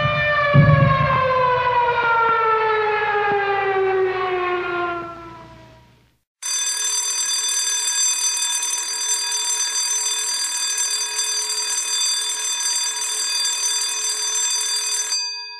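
An air-raid siren winds down, its pitch falling steadily until it dies away about six seconds in. After a brief gap, a school alarm bell rings at a steady pitch for about nine seconds and cuts off suddenly.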